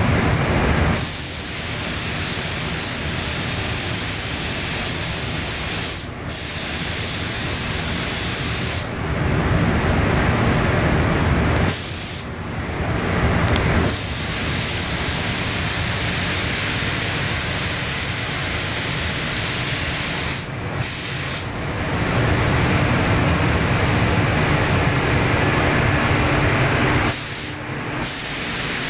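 Compressed-air paint spray gun hissing as it sprays paint, cut off in short breaks four times as the trigger is released. A steady low hum continues underneath.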